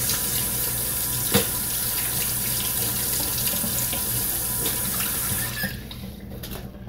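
Kitchen sink tap running steadily while hands are washed under it, turned off a little over five seconds in. A single brief knock about a second and a half in.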